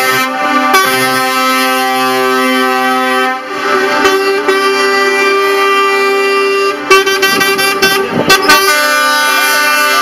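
Truck air horns blowing in long held blasts that change pitch every couple of seconds, then a run of short toots about seven seconds in.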